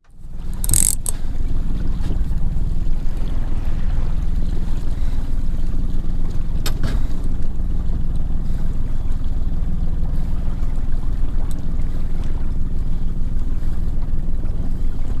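Steady low rumble of wind on the camera microphone aboard a small open boat at sea, with a sharp click about a second in and another near the middle.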